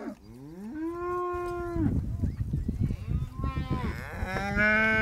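Cattle mooing. One call rises in pitch and then holds for about a second and a half, a short call comes around three seconds in, and another long, steady call starts just past four seconds.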